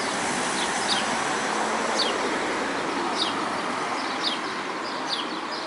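Cars driving past on a town street, a steady rush of tyre and engine noise. Over it a small bird keeps giving short chirps that fall in pitch, about one a second.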